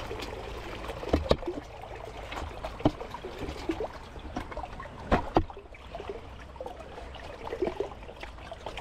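Water splashing and trickling in a live-bait bucket as a hand reaches in to catch a live mullet, with a few sharp knocks, the loudest about a second in and about five seconds in.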